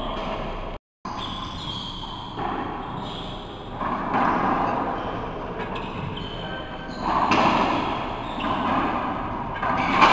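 Racquetball doubles rally in an enclosed court: the hollow rubber ball thumping off racquets, walls and floor, with the hard echo of the court. The sound drops out for a moment a little under a second in.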